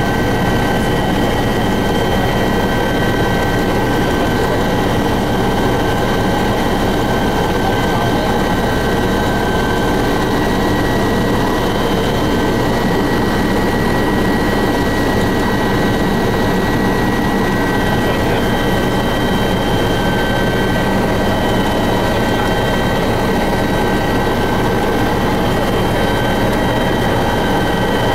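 Helicopter turbine engine and rotor noise heard on board in flight: a loud, steady drone with a constant high-pitched turbine whine over it.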